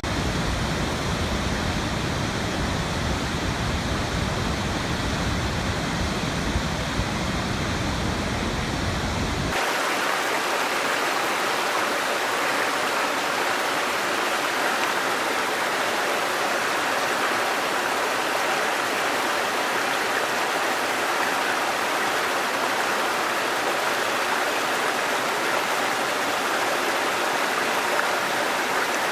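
Falling water rushing steadily, a sound-effect recording. About nine and a half seconds in it cuts suddenly from a deep rumble to a brighter, hissier splash with little low end, as if a second recording is spliced on.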